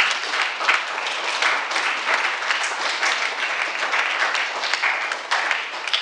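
Congregation applauding: many hands clapping together, starting abruptly and holding steady.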